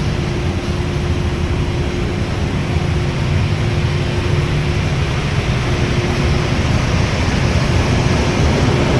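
Sawdust drum rotary dryer running: a steady, loud mechanical rumble with a constant hum.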